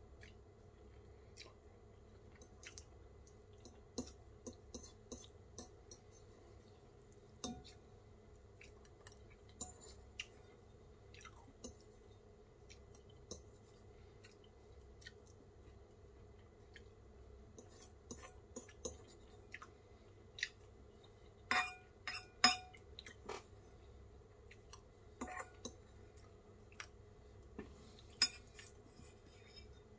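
Metal fork clinking and scraping against a ceramic bowl, with quiet chewing in between, as noodles are eaten. The clinks come on and off, busiest and loudest about two-thirds of the way through, as the bowl is scraped near empty.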